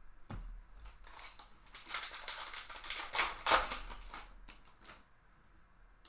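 Crinkling and tearing of a trading-card pack wrapper as it is ripped open and handled: a few sharp clicks, then about three seconds of dense crackle that is loudest near the middle and fades out.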